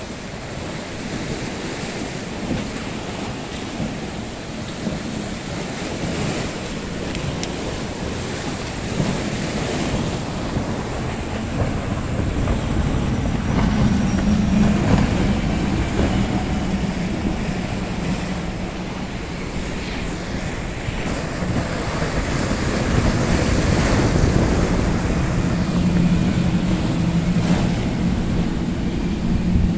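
Choppy sea and surf with wind buffeting the microphone, joined by the engine drone of powerboats running past close by, loudest about halfway through and again near the end.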